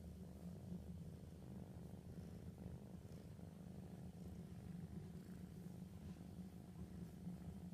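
Kitten purring steadily, a faint, continuous low rumble.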